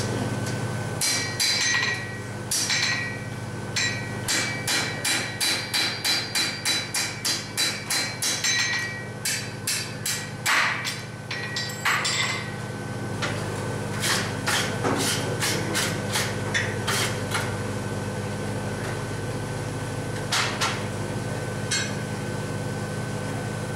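Hand hammer striking hot iron on an anvil, with the anvil ringing after each blow, as the end of a bar is rolled around a pin to form a hinge barrel. A quick run of blows comes at about two a second, then thins out to scattered single blows, over a steady hum.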